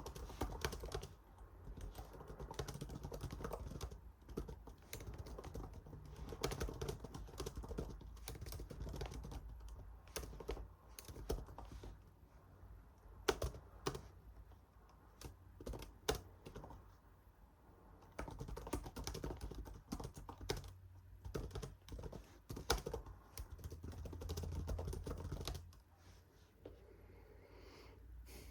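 Typing on a computer keyboard: runs of quick keystrokes broken by short pauses, with a few louder key taps standing out.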